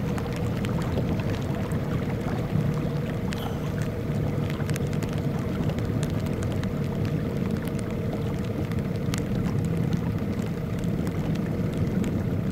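Small boat's outboard motor running steadily under way, a constant drone with a held hum, with wind and water noise over it.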